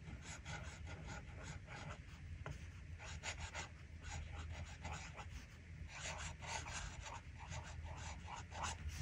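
Sailor Pro Gear fountain pen with a medium nib scratching across paper as a line of cursive is written: a quick, irregular series of short, faint nib strokes.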